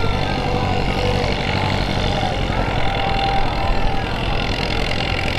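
Farm tractor engine idling steadily, hooked to a pulling sled and waiting for the start flag.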